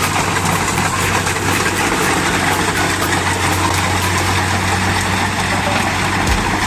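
An engine running steadily at a constant speed: a steady low hum under a dense, even mechanical noise.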